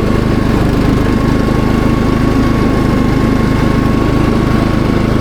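Cox Stockman ride-on lawn mower's engine running steadily under mowing load, with a thin steady whine over it.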